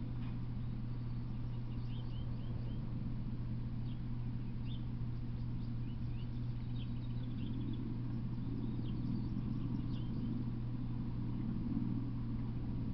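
Birds chirping in short, high calls scattered throughout, over a steady low hum.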